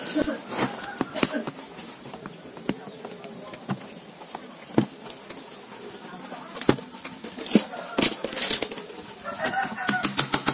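Plastic blower housing being handled and fitted together over a rewound motor: scattered clicks and knocks, with a quick run of taps near the end as a metal pipe is pressed onto the housing's centre.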